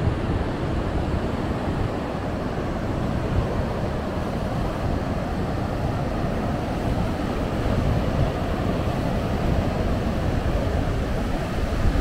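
Ocean surf breaking and washing up the sand as a steady rush, with wind buffeting the microphone.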